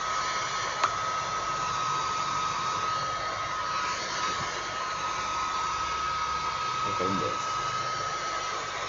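Hair dryer blowing steadily, with a thin high whine over the rush of air, drying a flood-soaked wallet.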